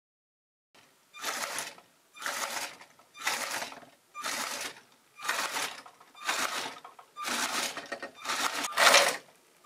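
A LEGO Mindstorms motor and its plastic Technic gearing run in short whirring bursts, about once a second, each lasting most of a second. The last few bursts are louder.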